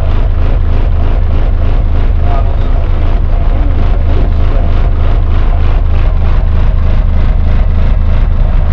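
A dB Drag competition car's subwoofer array plays a sustained, extremely loud low bass note, pulsing about four times a second and overloading the microphone. This is an SPL run, with the meter reading close to 150 dB.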